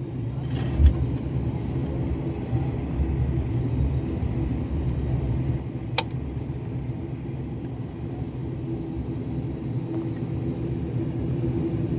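Airliner cabin noise during taxi after landing: a steady low engine rumble and hum, with a thump about a second in and a sharp click about six seconds in.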